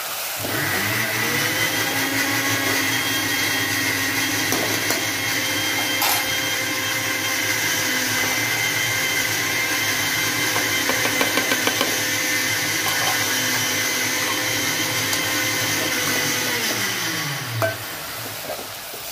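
A small electric motor running at steady speed with a high whine. It spins up with a rising pitch about half a second in and winds down with a falling pitch near the end.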